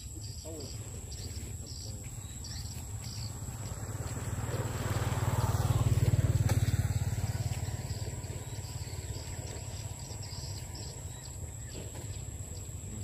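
Insects trill steadily, with repeated chirps over the top. In the middle, a low rumble swells up and fades away over about four seconds.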